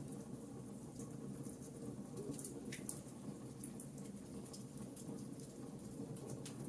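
Wood fire burning in a fireplace: a steady low rumble of flames with frequent small crackles and pops scattered throughout.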